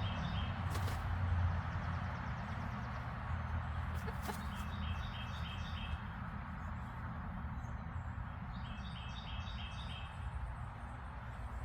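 Bird calls: three short runs of quick, evenly spaced high chirps, one at the start, one about four seconds in and one near nine seconds in, over a steady low rumble and hiss.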